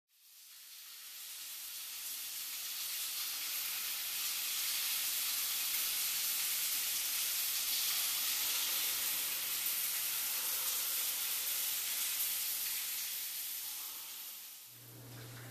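Steady rain falling on a wet concrete path and lawn, an even hiss that fades in over the first couple of seconds and fades down near the end.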